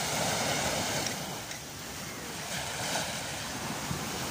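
Steady rushing noise of surf and wind, with wind on the microphone.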